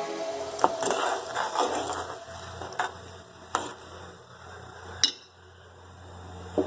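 Kitchen utensils clinking and knocking against cookware, about five separate knocks spread out, the sharpest about five seconds in, over a faint low steady hum.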